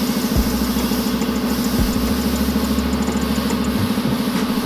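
A machine running steadily with a fast, even low throb, much like an idling engine.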